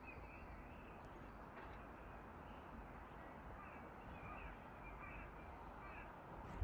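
Faint outdoor evening ambience: scattered short bird chirps over a low steady rumble, with one sharp click at the very end.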